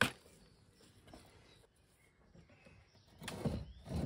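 Wooden boards being handled while a frame is assembled: a sharp wooden knock at the start, then a longer scraping rustle about three seconds in, ending in another knock. Birds chirp faintly in the background.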